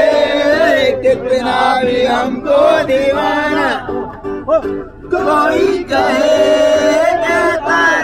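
Group of men singing a Hindi film song together, with long held notes over a steady instrumental backing.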